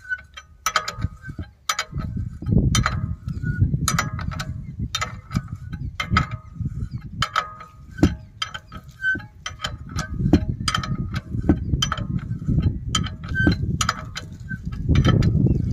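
Ratchet wrench and spanner clicking and clinking on a bolt by the pulleys of a Gill Preet combine thresher as the fitting is tightened. There are many short, uneven metallic clicks, some ringing briefly, over a low rumble.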